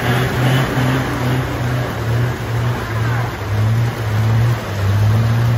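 Diesel engine of a Hino truck working at low revs as it climbs a steep hairpin under load, a steady low drone that deepens slightly near the end. Heavy rain hisses on the road throughout.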